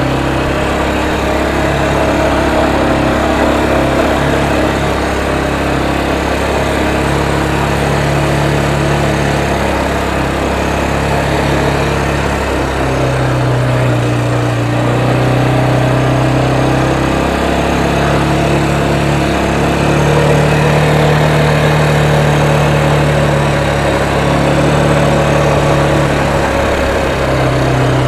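Small motorbike engine running steadily while being ridden, its pitch rising and falling a little as the throttle changes, with wind and road noise.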